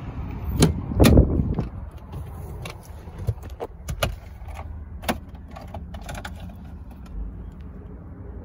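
Idling engine heard from inside a 2001 Ford Expedition's cabin as a steady low rumble, with a heavy clunk about a second in and a scattering of sharp clicks and knocks over the next few seconds.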